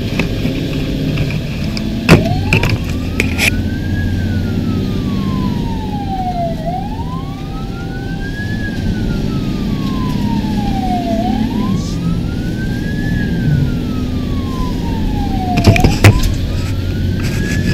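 Fire engine siren wailing, its pitch rising and falling slowly, about one cycle every four to five seconds, starting about two seconds in, over a steady low engine rumble. A few sharp knocks come about two seconds in and again near the end.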